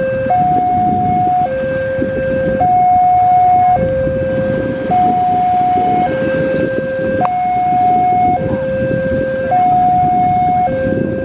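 Railway level crossing warning alarm sounding with the barriers down: a loud two-tone electronic signal, a higher and a lower tone alternating about once a second, the warning that a train is approaching.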